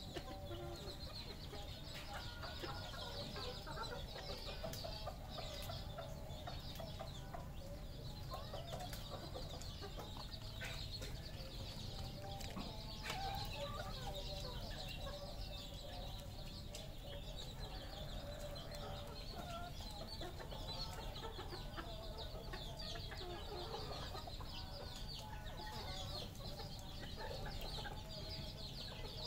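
A flock of red junglefowl clucking, many short calls overlapping without a break, over a constant high chirring.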